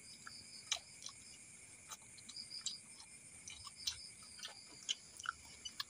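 Night crickets chirping in a steady high chorus, with scattered short clicks of food being handled and chewed.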